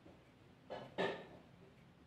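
Two short knocks close together, the second louder with a brief ring.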